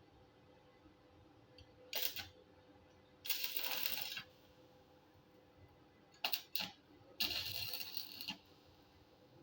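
Stick welder striking and running short tack welds, each about a second of crackling arc, steel strip fins being tacked onto a hollow steel roller. Sharp metallic clicks come between the welds, once before the first and twice before the second.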